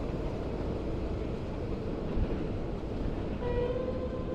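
Passenger train running past with a low, steady rumble. About three and a half seconds in, a single steady tone comes in and holds for over a second.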